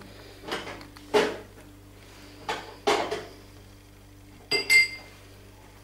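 A metal baking tray on a glass-ceramic hob clinks twice in quick succession, with a short bright ring, about three-quarters of the way in. Before that come several soft rustles and knocks of bread and tray being handled.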